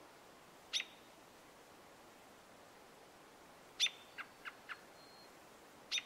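American robin calling: three sharp, down-slurred 'peek' notes spaced a few seconds apart, the second followed by a quick run of three short 'tut' notes.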